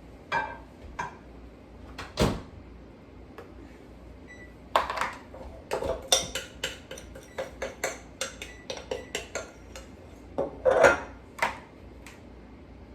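Spoons and kitchen utensils clinking, tapping and scraping against bowls and a donut pan in irregular knocks, with the loudest clatter a couple of seconds before the end.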